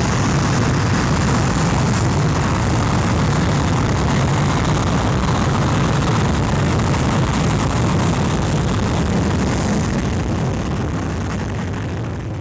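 Aircraft engines run up to takeoff power at the runway end, heard from the beach behind the blast as a loud, steady noise that begins to fade over the last couple of seconds.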